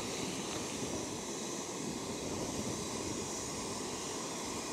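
SOTO WindMaster canister gas stove burning at full with a steady hiss, heating a pot of water.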